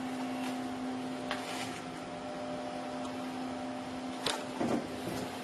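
Steady, fairly quiet mechanical hum with a constant tone, like a fan or small appliance motor, with a short click a little past four seconds in.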